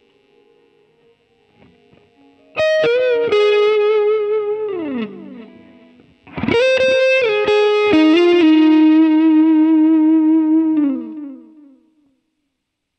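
Kiesel FG2 electric guitar recorded direct from a HeadRush Pedalboard, playing a distorted lead with no band or room sound. It plays two phrases of long held notes with vibrato, the first starting about two and a half seconds in and the second about six seconds in, each ending in a downward slide. The last note slides down and dies away near the end.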